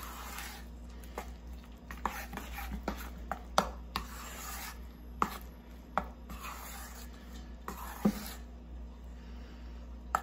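A spoon stirring and scraping thick pão de queijo dough of polvilho (tapioca starch) and grated cheese in a stainless steel bowl. Now and then the spoon clinks sharply against the bowl's side.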